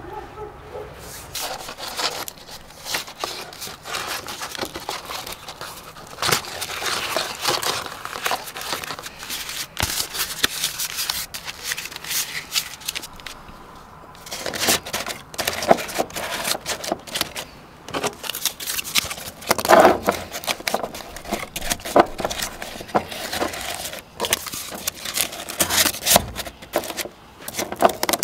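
Paper or cardboard being handled: irregular crinkling and rustling with many small clicks, busier in the second half.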